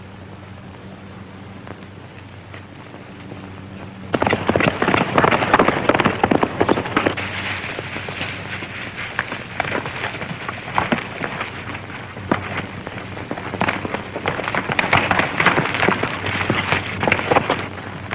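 A low steady hum, then about four seconds in a horse breaks into a gallop: a dense, fast clatter of hoofbeats on hard, brushy ground that comes and goes in loudness.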